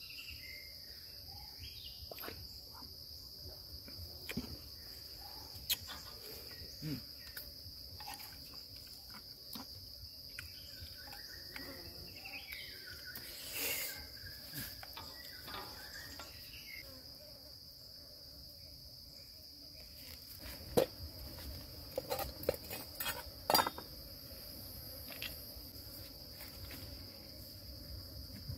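Insects droning steadily on a high pitch, with scattered soft clicks and knocks and a cluster of sharper knocks about three quarters of the way through.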